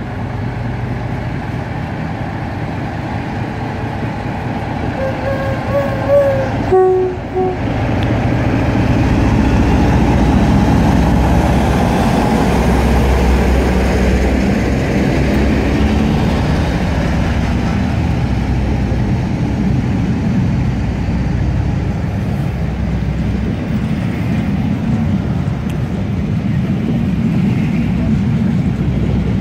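Two Class 47 diesel locomotives' Sulzer V12 engines thrashing as they pull a train away under power, a heavy diesel rumble that swells as the locomotives pass and stays loud with the coaches rolling by. About five to seven seconds in, a two-tone train horn sounds, a higher note and then a lower one.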